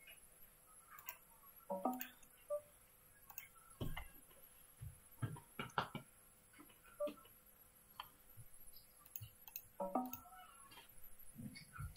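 Online poker software sound effects: scattered short clicks and ticks of chips and cards being dealt, with two brief pitched blips, one about two seconds in and one near the end.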